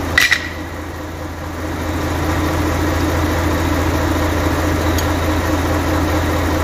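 Truck engine idling with a steady low hum that grows a little louder about two seconds in. A brief metallic clatter comes just after the start as the brake caliper is worked on with a tool, and a light tick follows near the end.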